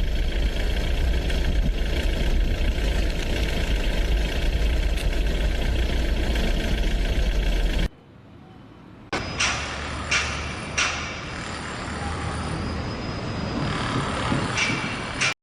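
A loud, steady engine or machine noise with a strong low rumble, cutting off suddenly near the middle. After a short gap comes a quieter steady noise with a few sharp knocks.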